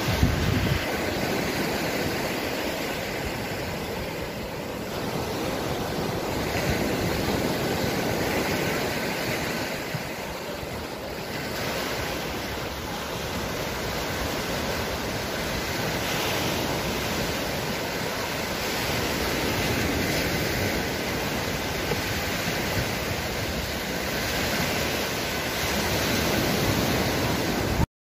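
Small waves breaking and washing up a sandy shore, with wind buffeting the microphone; the wash swells and eases every few seconds. It cuts off abruptly near the end.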